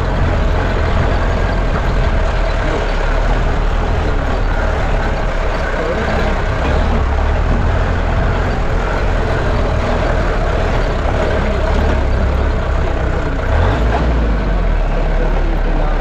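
Jeep engine and road noise heard from inside the vehicle while it drives along, a steady low rumble.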